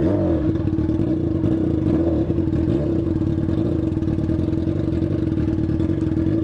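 Yamaha FZ6's inline-four engine idling steadily at a standstill, with the ugly, strange noise the rider keeps pointing out. The bike runs without its catalytic converter and has been misfiring.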